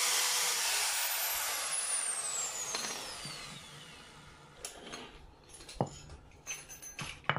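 Handheld power tool whirring, switched off about a second in, its whine falling in pitch as it spins down over a few seconds; then a few light metallic clicks and knocks.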